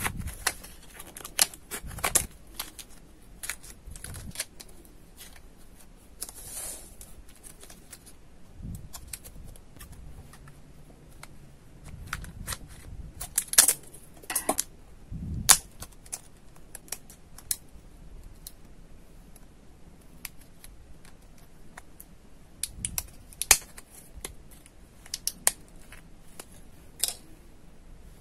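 Scissors snipping through a cardboard-and-plastic blister pack, mixed with crinkling and clicking of the stiff plastic as a microSD card is freed from it. The snips and clicks come irregularly, with the sharpest ones clustered a little before the middle and again near the end.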